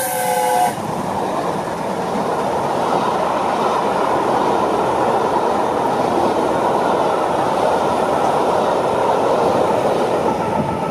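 The end of a steam locomotive's whistle, several notes sounding at once, stops abruptly under a second in. Then a rake of passenger coaches rolls past at speed: a steady rush of steel wheels on the rails.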